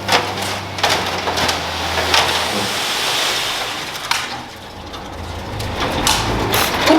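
A heavy machine's diesel engine running low while dirt is moved, with scraping and a string of clunks and knocks. The engine hum fades out about two and a half seconds in.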